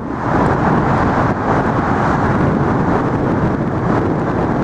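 Loud, steady rushing noise of traffic on the bridge, mixed with wind buffeting the microphone.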